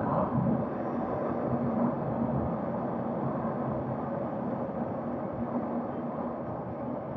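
KTM RC 390's single-cylinder engine running at steady highway cruising speed, mixed with wind rushing over the microphone.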